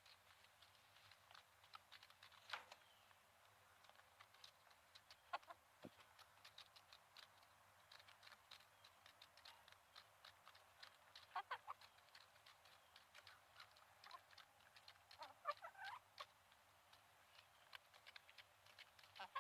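Faint sounds of hens eating pumpkin: many light taps as they peck at the flesh and seeds, with a few short, soft clucks scattered through.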